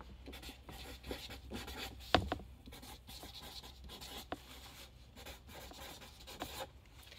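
Felt-tip marker writing on paper: faint scratchy strokes as the word is written repeatedly around a spiral, with one sharper knock about two seconds in.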